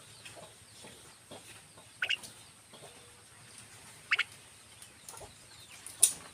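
Buffalo starlings giving short, harsh calls, three loud ones about two seconds apart over fainter scattered calls. This is the alarm calling of starlings frightened by unfamiliar sounds nearby.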